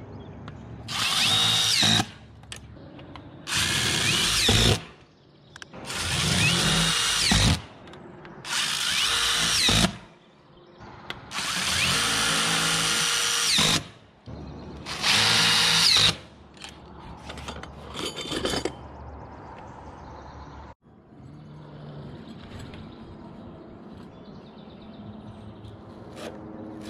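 Cordless impact driver driving screws through a steel standing seam roof panel, in six runs of a second or two each, a couple of seconds apart, stopping about 16 seconds in.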